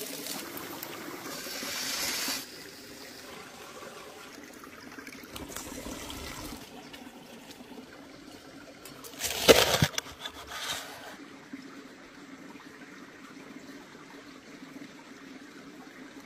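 A small stream trickling steadily. The first couple of seconds are louder with a hiss, and there is one short, sharp sound about nine and a half seconds in.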